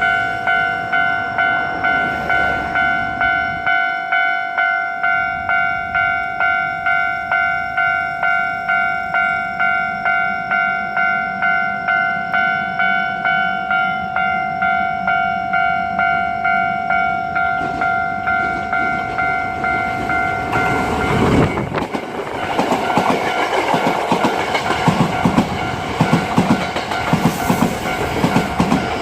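Japanese level-crossing warning bell ringing in a steady rapid ding-ding, about two strikes a second. About twenty seconds in, a Hankyu Takarazuka Line train passes over the crossing with a loud rumble and wheels clacking over the rail joints, while the bell keeps ringing.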